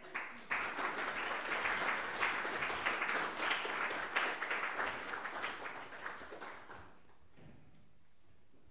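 Audience applauding, the clapping dying away about seven seconds in.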